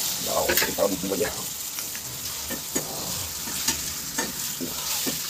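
Pieces of meat frying in hot oil with onions in a non-stick pan, sizzling steadily, while a metal spatula stirs them with irregular scrapes and taps against the pan.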